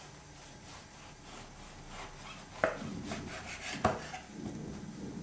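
Knife sawing through a burger bun on a wooden chopping board: a run of soft rasping strokes, with two sharper knocks about two and a half and four seconds in.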